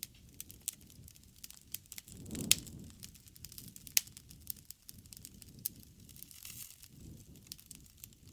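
Wood fire crackling with scattered sharp pops over a low rumble of flames; the loudest pops come about two and a half and four seconds in.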